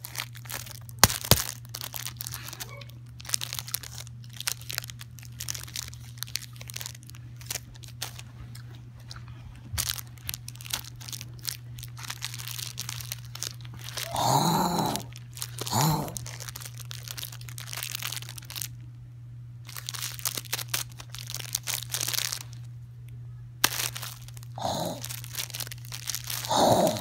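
Plastic food wrapper crinkling and crunching as a dog eats from it, in dense irregular crackles, with a few short louder sounds in the middle and near the end.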